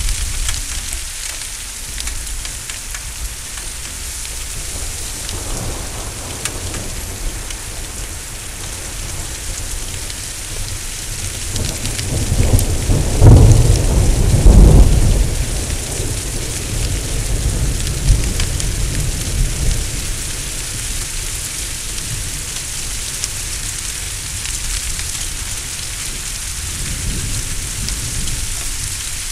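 Heavy thunderstorm rain falling steadily, with a deep rolling thunder rumble that swells about twelve seconds in, peaks twice in quick succession and then fades back under the rain.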